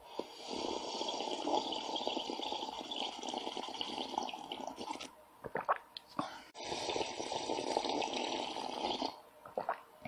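A person slurping liquid: two long, noisy slurps, the first about five seconds and the second about two and a half. A few short clicks fall in the pause between them and again near the end.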